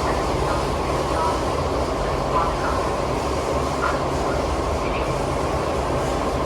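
Siemens C651 metro train running between stations, heard from inside the car: a steady rumble and rush from the wheels and running gear, with a few faint short squeaks.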